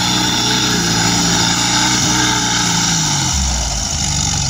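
Off-road cage buggy's engine running hard at high revs as it climbs a muddy slope, the pitch wavering up and down and dipping slightly near the end.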